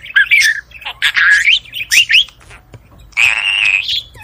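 Budgerigars chirping and warbling in quick, short calls that slide up and down in pitch, with a harsh, buzzy squawk about three seconds in.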